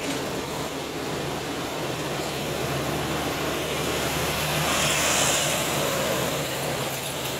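Pakistan Railways passenger coaches rolling past close alongside: a steady rumble and rush of wheels on rail under a low hum. It swells about two-thirds of the way through as the train's power van goes by.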